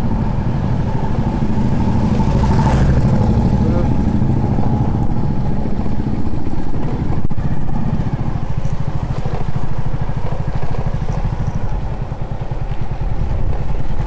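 Motorcycle engine running steadily at low riding speed, a low, rapid, even pulsing.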